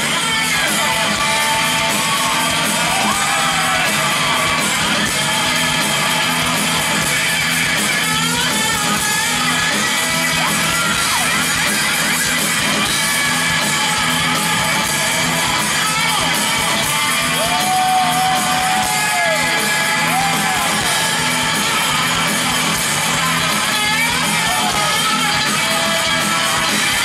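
Rock band playing live with distorted electric guitars, bass and drums, and a singer's voice coming through the mix at times.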